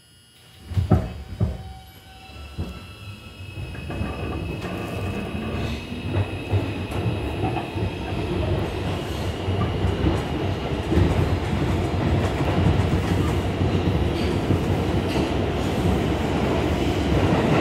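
R142 subway car pulling out of a station and gathering speed. Two sharp thumps come about a second in, then the running noise of wheels on rail builds up with a motor whine rising in pitch, and settles into a loud, steady rumble.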